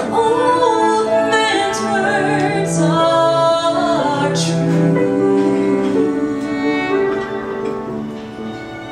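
Live acoustic ensemble of violin, cello, double bass and piano playing a ballad arrangement, with a woman's voice singing over it. The sound eases off a little near the end.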